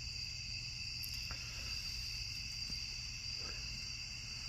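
Night insects chirring steadily at two high pitches, with a couple of faint clicks.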